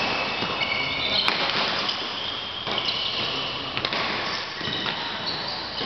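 Badminton rally: sharp racket strikes on the shuttlecock about a second in and near four seconds, with shoes squeaking on the court floor in between.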